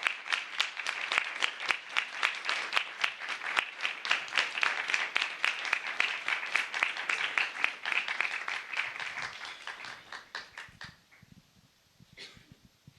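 Audience applauding, a dense run of claps that thins out and dies away about ten seconds in.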